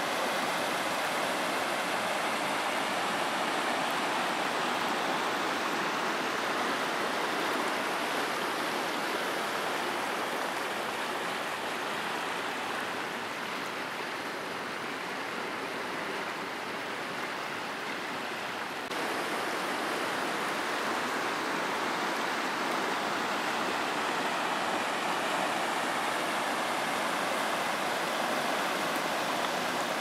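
Stream water rushing over rocky ledges in rapids, a steady churning noise of white water. It goes softer through the middle, then comes back louder all at once about two-thirds of the way in.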